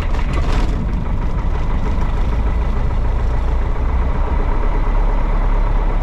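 Piper Cherokee PA-28-140's four-cylinder Lycoming O-320 engine and propeller idling steadily just after starting, heard from inside the cabin.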